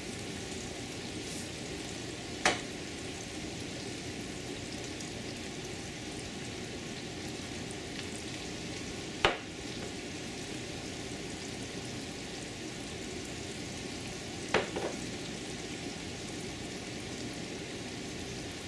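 Gar fish balls frying in shallow oil in a large pan: a steady sizzle. A few sharp taps stand out over it, the last a quick double.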